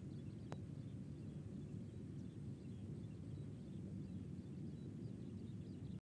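Steady low outdoor rumble, with one sharp click about half a second in and faint high chirps scattered through it.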